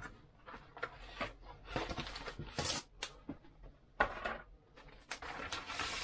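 Cardboard and paper packaging being handled and pulled apart by hand: a run of short scrapes, rustles and light taps, with a longer paper rustle near the end.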